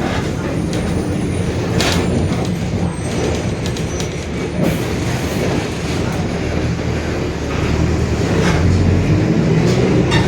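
Mercedes-Benz OF-1721 Bluetec 5 city bus under way: its front-mounted six-cylinder diesel engine and driveline run with a steady low drone and a differential growl, with occasional short rattles and knocks. The running gets a little louder after about eight seconds.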